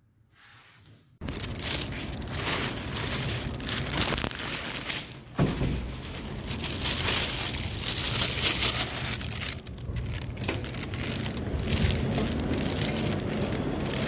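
About a second of near silence, then rustling and rubbing noise from a handheld phone's microphone being handled, with a few knocks.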